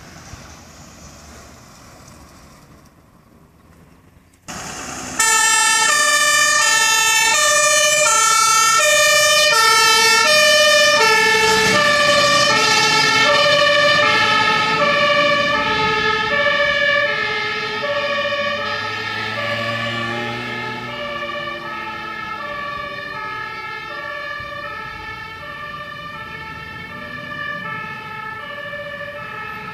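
Dutch fire engine's two-tone siren starting suddenly about four seconds in and alternating steadily between a high and a low note. It signals an emergency run under priority. It grows fainter over the second half as the truck drives away.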